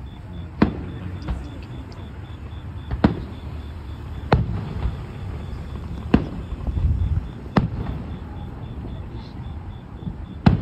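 Aerial firework shells bursting: about six sharp bangs at uneven intervals, a second or two apart, over a low background rumble.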